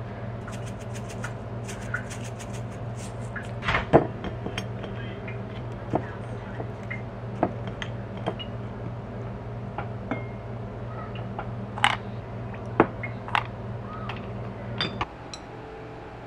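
Kitchen clatter: dishes and utensils clinking and knocking now and then over a steady background hum, which cuts off suddenly about fifteen seconds in.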